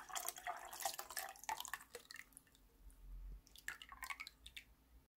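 Lye (caustic soda) solution poured from a glass jug through a stainless steel mesh sieve into a pot of oils, trickling and spattering. The stream thins to a few drips about two seconds in, then a last short pour near the end.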